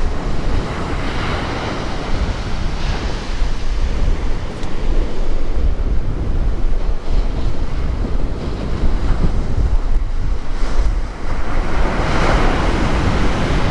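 Wind buffeting the microphone over surf breaking on the shore, with a louder wash of breaking waves about twelve seconds in.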